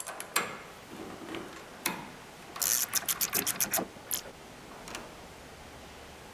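Metal hand tool clicking and clinking on the nut and shaft at the top of a helicopter's central gearbox: a few single clicks, then a quick run of about ten clicks in just over a second.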